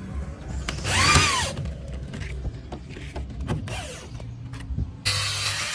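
Corded electric drill driving self-tapping screws into a plywood cabinet: a steady motor hum, a loud rise and fall in pitch about a second in as the trigger is squeezed and let go, then scattered clicks. Near the end the sound switches abruptly to the loud hiss of an angle grinder working the board's edge.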